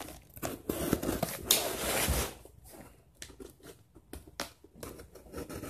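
A cardboard shipping box being opened by hand: tearing and rustling of the cardboard and its contents, busiest in the first two seconds, then a few lighter scrapes and taps.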